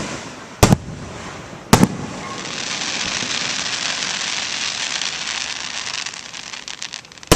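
Fireworks display: three sharp aerial shell bangs in the first two seconds, then several seconds of dense crackling, and another sharp bang near the end.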